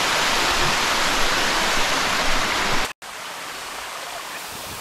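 Falling water pouring close by: a loud, even rush of water. It cuts off abruptly about three seconds in and gives way to a quieter, steady rush of water.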